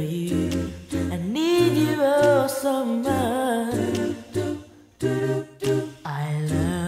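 Male vocal group singing wordless a cappella harmonies and humming over a low bass voice, with a lead voice running up and down through a melismatic line about a second and a half in.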